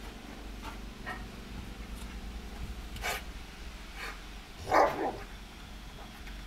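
A dog barking in short calls, the loudest about five seconds in.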